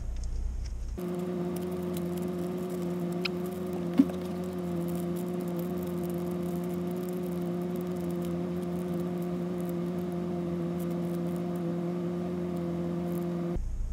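Plastic packaging crinkling and rustling in the hands as a small parcel is unwrapped, over a steady low hum. A single sharp click sounds about four seconds in.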